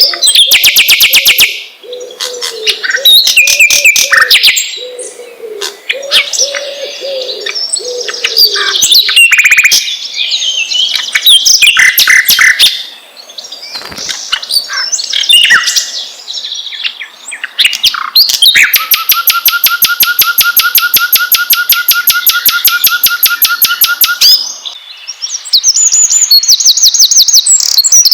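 Songbirds chirping and singing, a busy mix of sharp chirps, whistles and rapid trills. A low repeating call runs underneath for the first nine seconds, and from about 18 s a long fast trill goes on for some six seconds.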